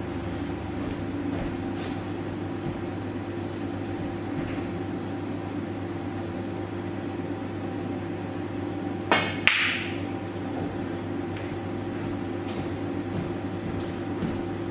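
Snooker cue tip striking the cue ball, followed about half a second later by a sharp click of the cue ball against a red, over a steady room hum. A fainter knock of a ball comes about three seconds later.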